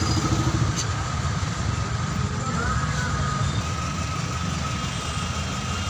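Steady traffic and engine rumble heard from a vehicle creeping along a busy city street, low and even, with a faint thin whine running through it. One short click comes about a second in.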